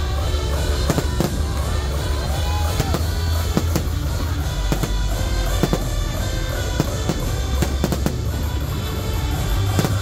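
Fireworks display: a rapid, irregular barrage of aerial shells bursting and crackling over a continuous deep rumble.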